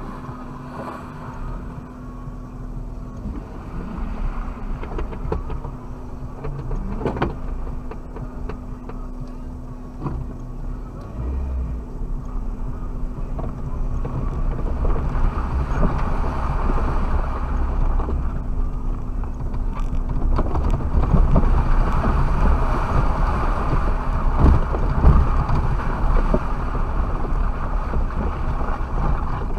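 Suzuki Jimny running and driving over rough ground, heard from inside the cabin: a steady engine hum with scattered knocks and rattles from the body. It grows louder and rougher about halfway through.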